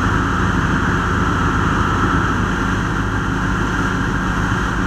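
Fire engine's diesel engine running steadily at pumping speed while it supplies a hose stream.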